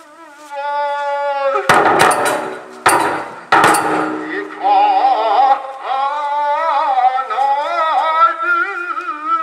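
Nanbu kagura music: a voice chanting in long, wavering held notes, broken between about two and four seconds in by three loud strikes on the taiko drum, after which the chant carries on.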